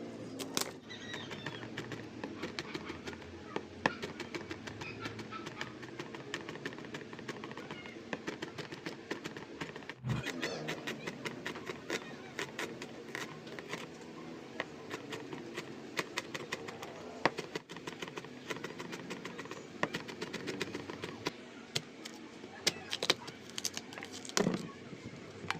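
Kitchen prep sounds: many irregular light clicks and clinks of utensils and cookware over a steady background, with a couple of louder knocks about ten seconds in and near the end.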